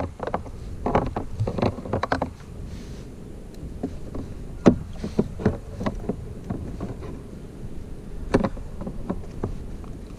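Irregular handling noises as a small fish is unhooked in the lap on a kayak: short knocks, clicks and rustles of hands, hook, lure and clothing, busiest at first, with the sharpest knock about halfway through.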